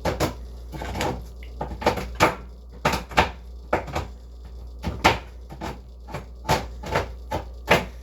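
A run of sharp kitchen knocks, about two a second and unevenly spaced, over a steady low hum.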